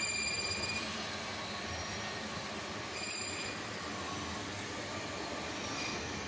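CNC lathe turning engine valves, running steadily with coolant flowing over the tooling. Brief high-pitched metal-cutting squeals sound near the start and again about three seconds in.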